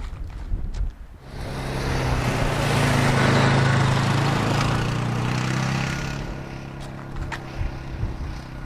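An engine passing by at a steady pitch: it builds about a second in, is loudest around three to four seconds, then fades away.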